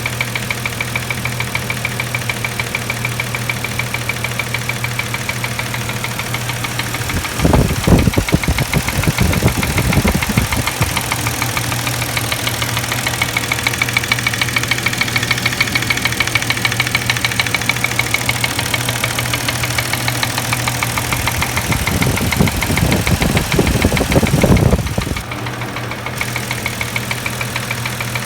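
Mercedes-Benz M112 V6 engine idling with a fast, regular knock from the left cylinder head, revved up twice. The knock stays when the ignition coils are unplugged, which points to a mechanical rather than ignition cause.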